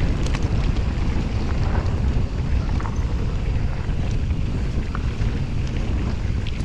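Wind buffeting a POV action camera's microphone during a fast mountain-bike descent on a dirt trail, a steady rumble with scattered small clicks and rattles from the bike and tyres.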